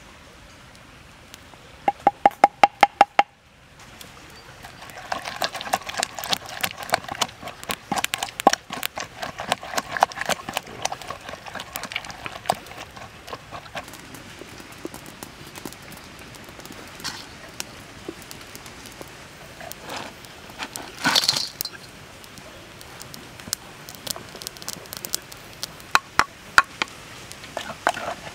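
Wooden spoon and pestle knocking against a wooden mortar. There is a quick run of about eight ringing knocks a couple of seconds in, then a long stretch of dense clicking and knocking, and a few more sharp knocks near the end, over the crackle of a wood fire.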